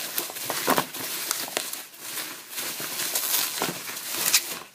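Bubble wrap and plastic packaging being crinkled and pulled off by hand, with irregular crackles.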